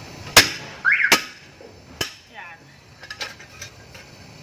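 Slide-hammer impact puller knocking: the weight is struck back against its stop three times in about two seconds, pulling a wheel hub and brake rotor off the axle. The first knock is the loudest. Lighter metal clinks follow near the end as the freed hub is handled.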